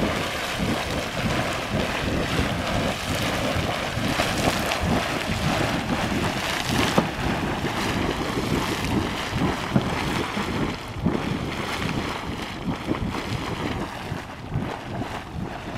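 Anemone Geyser erupting: hot water spurting and splashing from its vent in irregular surges, with wind buffeting the microphone. The splashing eases off near the end.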